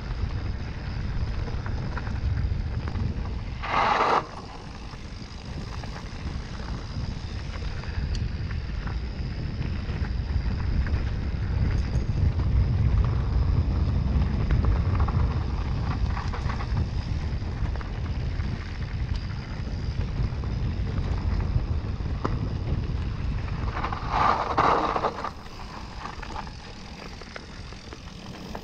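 Wind buffeting the microphone over the steady rumble of an electric mountain bike riding a trail. Two brief louder bursts stand out, one about four seconds in and another near the end.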